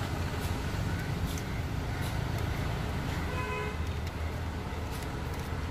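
Road traffic with a steady low engine rumble; a vehicle horn toots briefly about three seconds in.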